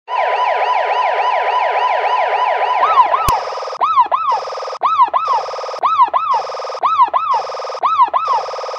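Electronic police siren in a fast yelp of falling sweeps, about four a second, switching about three seconds in to a pattern of paired falling chirps alternating with a steady high tone. A sharp click comes just after the switch.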